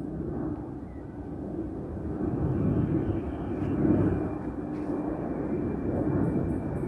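Boeing 737-800 jet taking off, its CFM56 engines at takeoff power: a deep rumble growing steadily louder, with a faint steady whine above it from about halfway.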